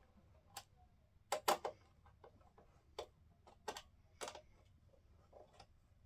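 Screwdriver driving the mounting screws of a computer power supply into the metal case: a string of irregular sharp metallic clicks and taps, loudest about a second and a half in.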